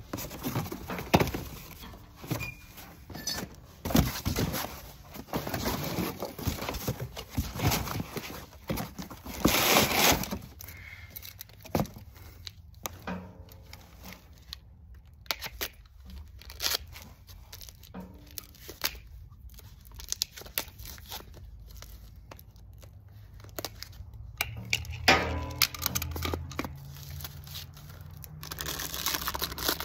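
Paper and cardboard packaging being handled: irregular tearing, crinkling and rustling of brown paper wrapping and a cardboard box, with the loudest bursts in the first ten seconds and sparser handling noises after.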